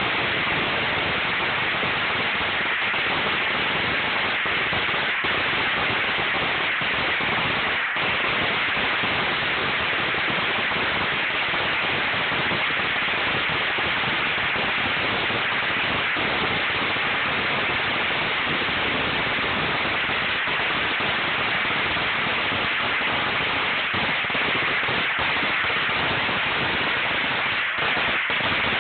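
A long string of firecrackers going off without pause, the bangs so close together that they merge into one steady crackle.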